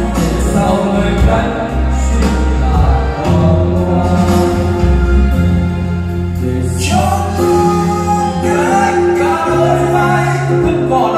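A song with singing and a steady bass line, played loud through a hall's karaoke loudspeaker system.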